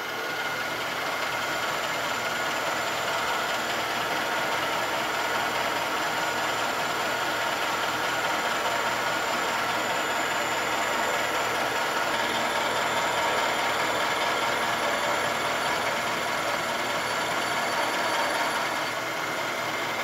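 Milling machine running steadily, its one-inch end mill taking a light clearance pass along a slot in a cast iron lever. The pass widens the slot by about ten thousandths so that a tight-fitting pin will go in.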